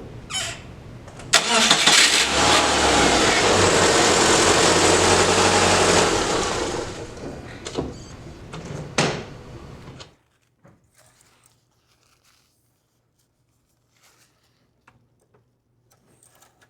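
2006 Subaru Outback's engine starting about a second in and running, fresh oil just filled, then stopping abruptly about ten seconds in.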